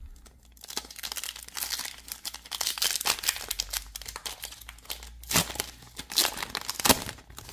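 Foil Pokémon booster pack wrapper being torn open by hand, crinkling and crackling, with a few louder sharp crackles between about five and seven seconds in as the wrapper is pulled apart.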